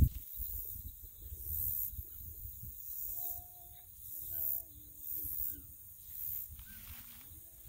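Low rumbling wind noise on the microphone with a hissing rustle that swells and fades in gusts. From about three seconds in come a few faint, short pitched calls, some stepping down in pitch.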